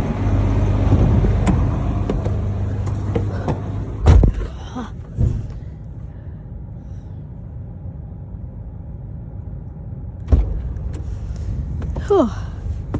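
A vehicle engine running steadily, loud for the first four seconds and then quieter. Three sharp knocks or thumps cut through it, about four, five and ten seconds in.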